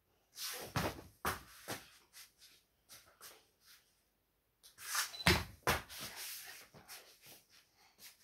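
A series of irregular knocks, bumps and rustles in a small room, with the loudest knock about five seconds in.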